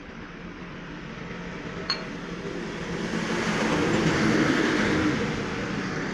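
An engine running steadily with a low hum, and a louder rushing noise that swells up and dies away over a few seconds. A single sharp click about two seconds in.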